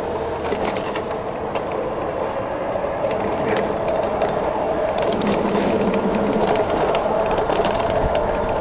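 Electric bike riding at speed on city pavement: a steady electric motor whine over tyre rumble, with scattered rattles and clicks as the bike runs over rough road.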